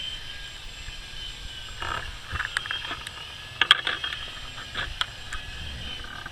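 Distant RC plane's motor and propeller giving a steady high whine that wavers slightly in pitch, with a run of short chirps and clicks in the middle.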